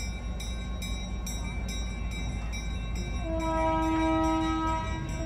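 Skunk Train horn sounding: a long held blast starts about three seconds in and breaks off briefly near the end, over the low rumble of the train. Before it, a rapid metallic ringing at about four strikes a second.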